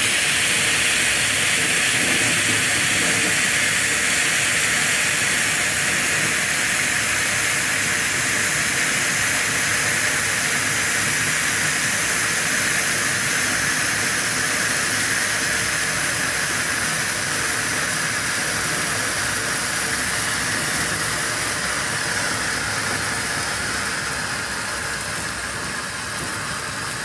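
Black Cat Firestix stick fountains burning, a steady hiss of flame and sparks. It grows quieter over the last few seconds as the sticks burn out.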